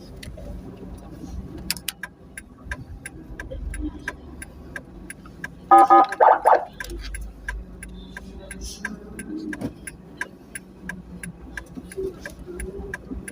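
A vehicle horn gives a quick burst of about four short honks some six seconds in, over a low vehicle rumble and a steady ticking of about three clicks a second.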